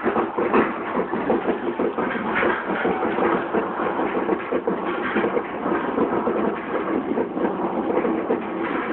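Steel roller coaster train being hauled up the lift hill by its chain lift: a steady mechanical rattle with dense, rapid clicking from the chain and the anti-rollback catches.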